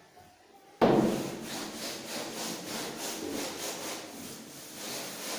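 Cloth duster being rubbed hard across a chalk blackboard, wiping it clean in quick back-and-forth strokes, about three a second. It starts abruptly with a loud first stroke about a second in.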